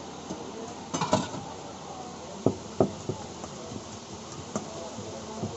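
Kitchen utensils knocking and clinking at a street food stall: a quick cluster of taps about a second in, then single sharp knocks every second or so, over steady street background noise.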